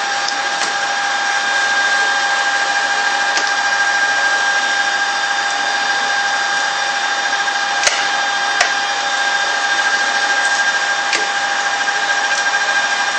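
Birmingham lathe running steadily with an even whine, and two sharp clicks about eight seconds in.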